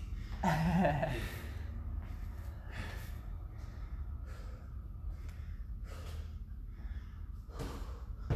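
A man breathing hard to catch his breath mid-workout, winded from push-ups: loud breaths every second or so, with a voiced gasping exhale about half a second in. A steady low hum runs underneath.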